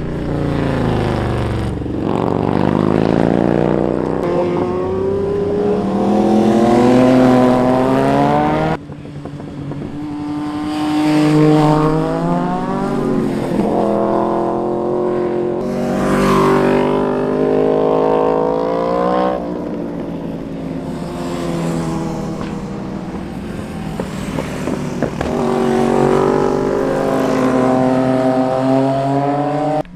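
Street motorcycles passing one after another, engines revving up and falling back through the gears as each goes by, the passes overlapping. The sound breaks off abruptly about nine seconds in and picks up again with more passes.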